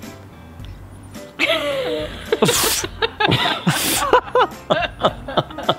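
Laughter in short, bouncing bursts with a couple of breathy outbursts, starting about a second and a half in over quiet background music.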